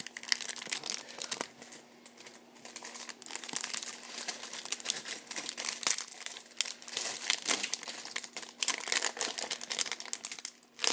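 Foil wrapper of a 2015 Bowman Chrome baseball card pack crinkling and tearing as it is peeled open by hand, a crackle of many small clicks with brief lulls about two seconds in and again near the end.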